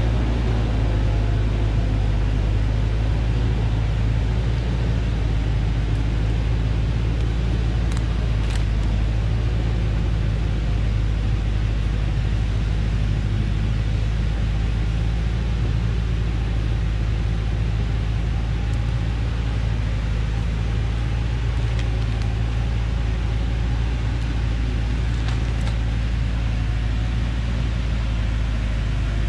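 A vehicle engine running steadily at low, even revs, with a deep continuous hum and a few faint ticks.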